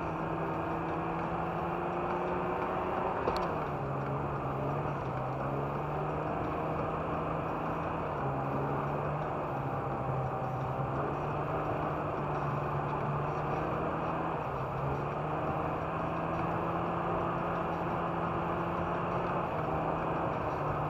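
Inside the cabin of a 1992 BMW 320 (E36) driving on a snowy road: its 2.0-litre inline-six runs steadily under the tyre and road noise, with one sharp click about three seconds in.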